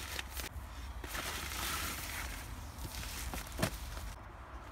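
Packaging being handled: a drawstring fabric bag and bubble wrap rustling and crinkling as a boxed phone is pulled out, with one sharp knock about three and a half seconds in.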